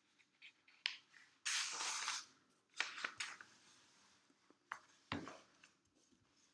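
A notebook page being turned: a papery swish about a second and a half in, with several short crackles and taps of paper around it.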